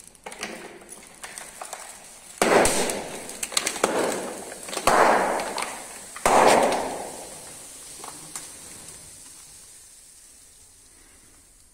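Car tyre rolling over a row of plastic soda bottles and balloons: light crackling, then three loud bursts as bottles and balloons pop under the wheel, each followed by a fading hiss.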